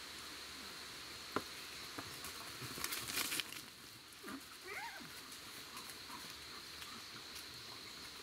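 Dogs romping on dry leaf litter: a brief scuffle of paws and rustling leaves about three seconds in, followed by a couple of short high whines, over a steady insect drone.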